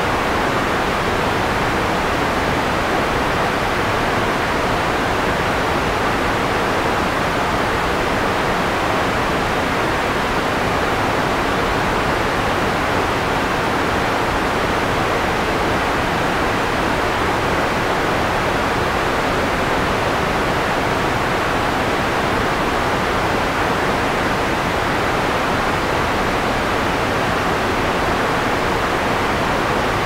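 Soft white noise like TV static: a steady, even hiss that never changes, with the sharp top end rolled off so it sounds dull rather than bright.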